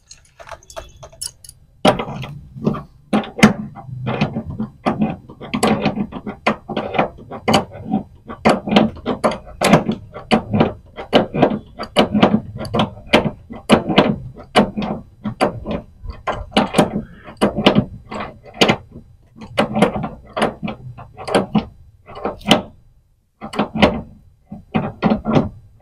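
Repeated irregular metallic clicks and knocks of a spanner being worked back and forth on a fitting, a few a second, as a reducer bush is tightened onto the 3/8 service valve of a split air conditioner's outdoor unit.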